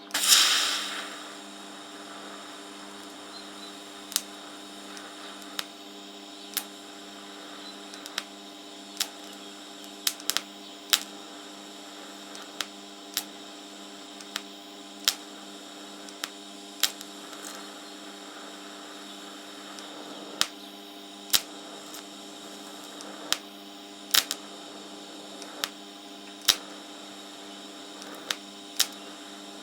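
TIG welding arc on thin, rusty steel: a hissing burst as the arc strikes, then a steady buzzing hum with sharp clicks every second or two, while pinholes in the fuel tank are sealed.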